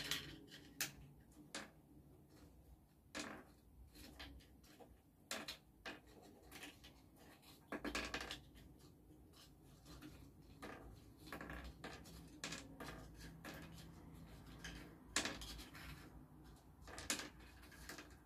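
Chopsticks clicking and beans dropping into small dishes as beans are picked up one at a time: faint, irregular taps and clicks, a few sharper ones about eight, fifteen and seventeen seconds in.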